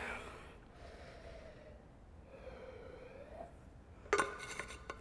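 Faint swallowing and breathing while drinking from a water bottle. About four seconds in there is a sharp metallic clink and rattle with a brief ring as the metal bottle and its cap are handled.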